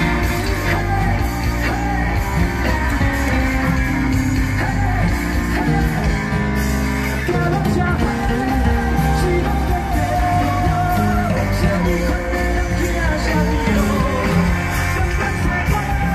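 Live rock band playing through a PA: electric guitars and drums with a singer.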